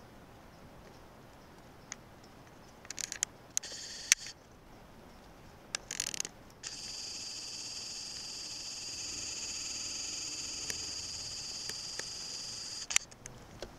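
A camcorder's zoom motor whining steadily for about six seconds as the lens zooms out, starting and stopping abruptly, after a few short clicks and scrapes.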